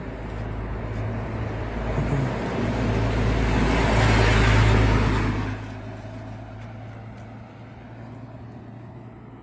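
A car passing close by on the road, its noise swelling to a peak about four to five seconds in and then falling away quickly, over a steady low hum.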